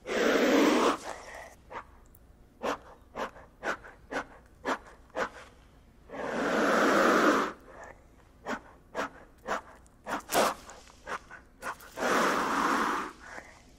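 Three long breathy hisses, about six seconds apart, each followed by a run of short sharp puffs roughly every half second.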